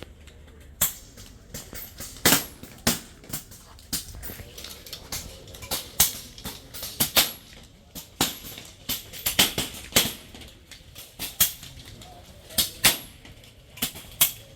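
Pre-charged pneumatic airguns firing along a competition line: an irregular series of sharp cracks, a few a second, some close together, from several shooters firing at once.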